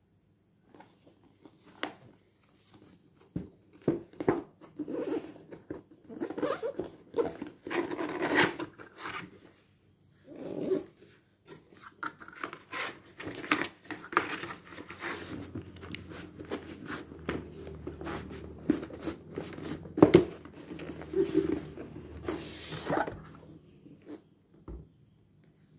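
A cardboard drone box being handled and opened by hand: irregular rubbing, scraping and rustling with scattered clicks of fingers and cardboard, and one sharper knock about three-quarters of the way through.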